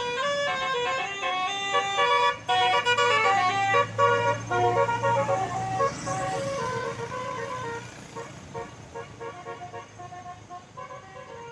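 A tour bus's Basuri multi-tone 'telolet' horn playing a fast melody of short stepped notes, with a low engine hum underneath; the horn grows fainter after about seven seconds.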